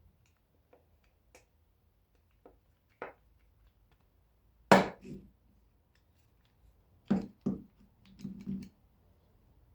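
Scattered knocks and taps of the wooden musket stock and hand tools being handled. There are a few light taps early, the loudest knock about five seconds in, and a quick pair of knocks about two seconds later.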